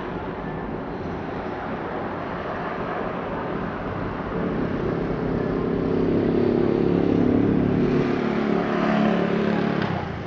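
A motor engine running at a steady pitch, over a constant rush of wind and water noise; the engine comes in about four seconds in, grows louder, and stops just before the end.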